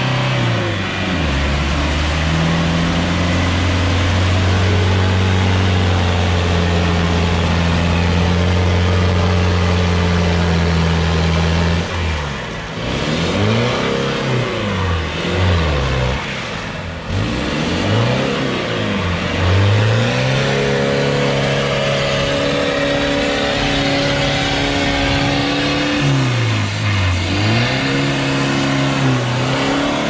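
Off-road 4x4's engine under heavy load as it drives through deep bog mud. It is held at steady high revs for about ten seconds, then revved up and down again and again as the vehicle fights to keep momentum.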